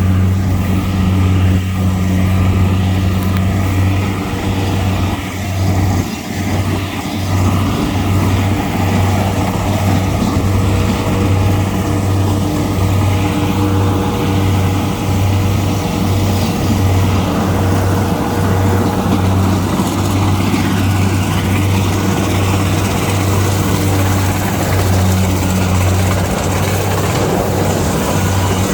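Kubota combine harvester running: a loud, steady low engine drone over the noise of its working machinery.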